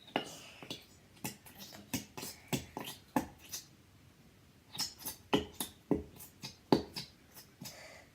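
Plastic glue bottle squeezed hard to force out the last of the glue: a quick, irregular series of sharp pops and squelches as air spurts through the nozzle, in two runs with a pause of about a second in the middle.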